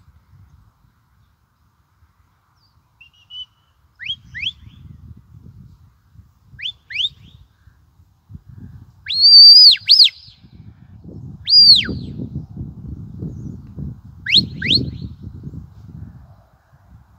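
Shepherd's whistle commands to a working sheepdog: pairs of short, quick, rising whistles, and in the middle two long, loud, high whistles that rise, hold and fall. A low rumble runs under the second half.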